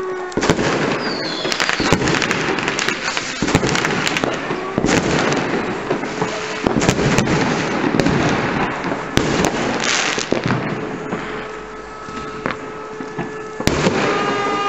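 Fireworks cracking and banging overhead in a dense, uneven barrage, with one hard bang near the end. Under them a fire brigade alarm siren holds one wailing tone: it dies away at the very start and sounds again steadily in the last few seconds.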